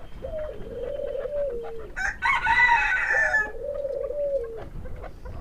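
Birds calling: two long, low, wavering calls. Between them, about two seconds in, comes a louder, higher call lasting about a second and a half.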